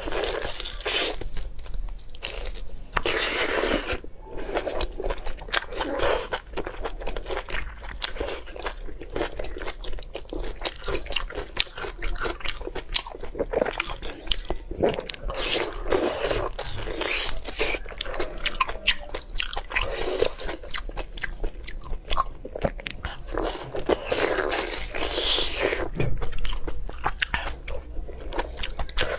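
Close-miked eating: repeated crisp bites and crunches with wet chewing, coming in bursts.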